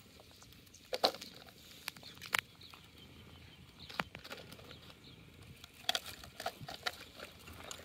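A nylon cast net being gathered and sorted by hand on a plastic sheet: scattered light clicks and rustles, with two sharper taps about one and two and a half seconds in.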